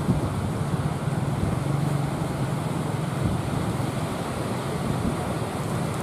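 Surf breaking on the beach with wind buffeting the microphone, and a low motor hum coming and going underneath.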